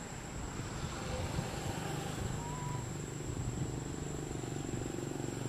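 Steady low drone of a motor engine in the background, holding an even pitch and growing a little stronger about two seconds in.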